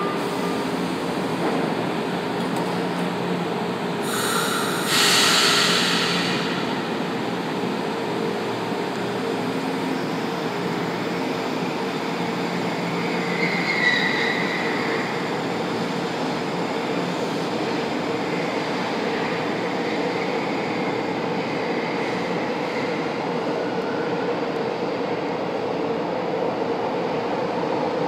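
São Paulo Metro train running through an underground station, with a steady rumble of wheels and motors. A short burst of hiss comes about four seconds in, and a brief squeal around the middle.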